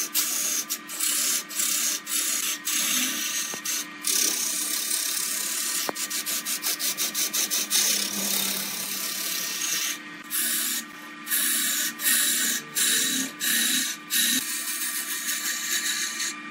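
Hand turning tool cutting into jackfruit wood spinning on a lathe: a loud rough hissing scrape as shavings peel off, dropping out and coming back many times as the cut stops and starts, over a steady low hum.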